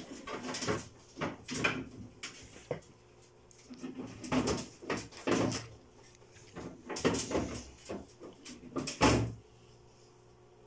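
Irregular scrapes, rustles and knocks of close handling, as hands and camera move over a crocodile's scaly hide and clawed foot, with a louder thump about nine seconds in.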